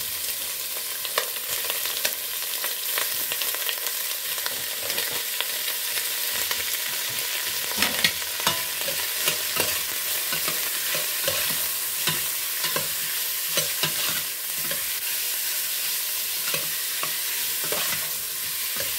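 Pork cubes sizzling in hot oil with onion and garlic in a stainless steel pot as they are sautéed. A metal utensil stirs them, scraping and clicking against the pot over the steady sizzle, with a few louder knocks about halfway through.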